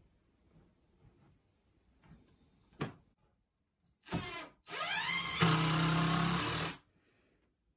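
DeWalt cordless drill drilling into the wooden counter frame. It gives a short burst about four seconds in, then speeds up with a rising whine, runs steadily for about two seconds and stops sharply.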